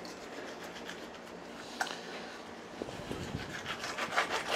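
Knife slicing and scraping along a sea bream fillet on a plastic cutting board: faint scraping with one sharp tick about two seconds in and a quick run of small ticks and scrapes near the end.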